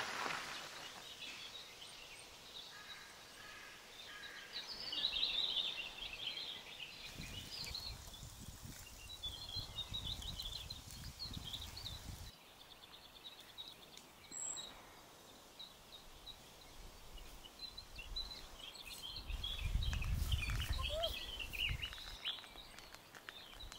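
Small birds chirping and singing on and off, with two stretches of low wind rumble on the microphone.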